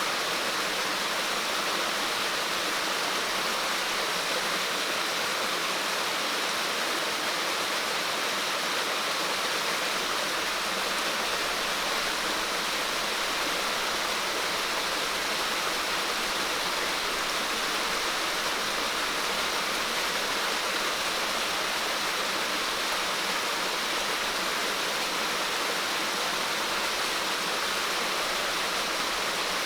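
Steady, even rush of water, with no breaks or single splashes standing out.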